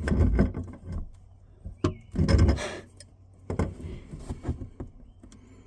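Wrench clanking and knocking against a plumbing fitting while it is tightened by hand, in a few separate bouts of clunks and rattles, the heaviest about two seconds in.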